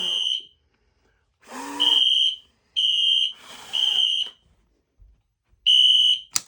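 Fire alarm sounder in alarm, set off by test smoke in a smoke detector: a high steady beep in the three-beep evacuation pattern, three half-second beeps then a pause of about a second and a half. Two puffs of blowing, to clear the smoke from the detector, fall between the beeps. Sharp clicks come near the end.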